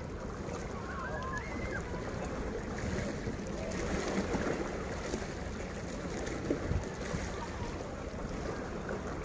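Steady wind on the microphone with sea waves at the shore.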